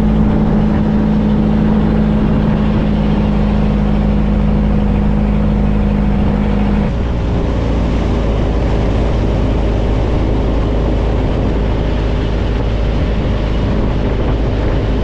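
Tour boat's engine running steadily under way, a loud continuous drone with a humming tone that changes about seven seconds in.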